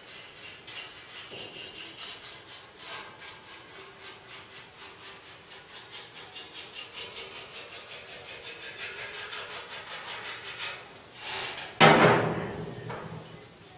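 Paintbrush scrubbing primer onto the bare steel of a car's bodywork in quick, even strokes, about four a second. Near the end a single sharp knock, the loudest sound, dies away over about a second.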